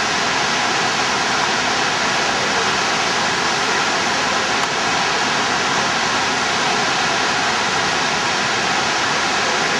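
Niagara Falls and the churning river at its foot: a steady, unbroken rush of falling and tumbling water.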